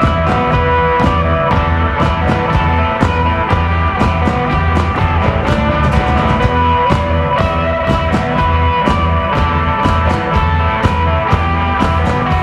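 Instrumental desert rock played live by a trio: electric guitar holding sustained notes over a steady bass guitar line, with a drum kit keeping a regular beat of drum and cymbal hits.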